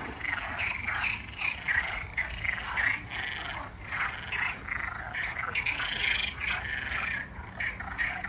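A chorus of frogs croaking, many short calls overlapping irregularly.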